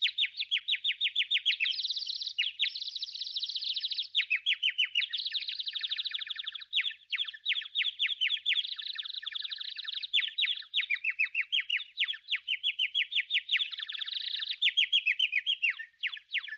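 Songbird singing in fast, unbroken trills of short high chirps, the phrase changing every second or two.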